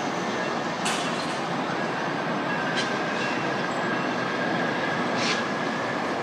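Tri-Rail commuter train running away down the track: a steady noise with a faint high whine and a few brief sharp clicks.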